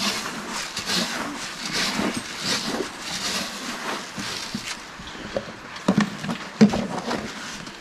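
Hand stirring dry cattle feed in a container: a rustling, scraping sound in repeated strokes, about one every three-quarters of a second, easing off after about four seconds, with a couple of sharp knocks about six seconds in.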